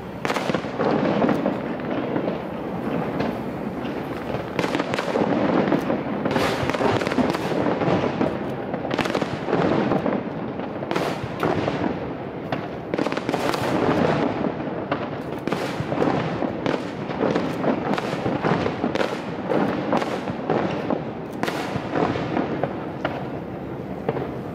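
Aerial fireworks bursting in quick succession: many sharp bangs over a continuous rumble, thinning out near the end.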